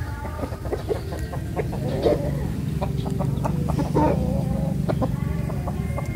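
Gamecock roosters clucking, with louder short calls about two and four seconds in, over a steady low rumble and scattered light ticks.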